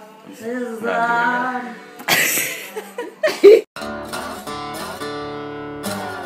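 Voices for the first few seconds, with a loud outburst, then a sudden cut to strummed acoustic guitar music.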